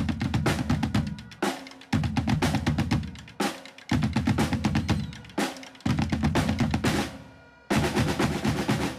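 Drum-heavy background music: a fast run of drum hits starts abruptly about every two seconds and fades away each time.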